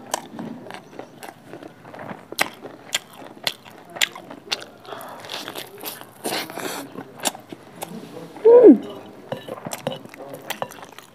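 Close-miked mouth sounds of eating saucy pork and rice by hand: wet chewing and biting with frequent sharp lip smacks and clicks. About eight and a half seconds in comes the loudest sound, a short hum that falls in pitch.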